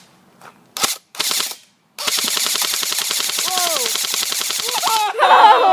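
M16 rifle firing on full automatic: a short burst about a second in, then a sustained burst of rapid shots, about a dozen a second, from about two seconds in.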